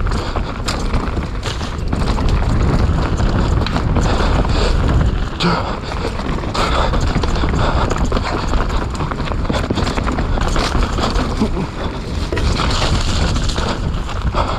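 Wind rushing over the microphone on a fast mountain-bike descent, with frequent clicks and rattles from the bike on rough, wet trail.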